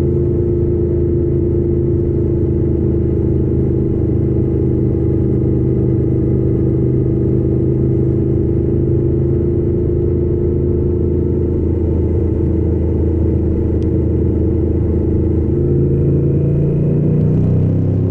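Yamaha XT600 K's single-cylinder four-stroke engine running steadily under way. A few seconds before the end its pitch climbs as it accelerates.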